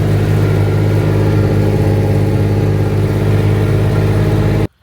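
Engine of a small farm vehicle running at a steady speed with a strong low hum, cutting off suddenly near the end.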